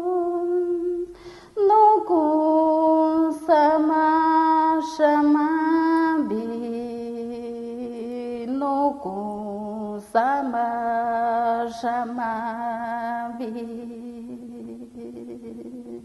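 A woman singing an icaro, the chant of an ayahuasca ceremony, alone and unaccompanied. She holds long notes with short breaks for breath, drops to a lower pitch about six seconds in, and grows quieter near the end.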